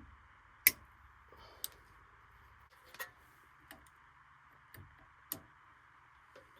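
Irregular sharp clicks and taps, about six of them, the loudest about two-thirds of a second in, over a steady faint hiss.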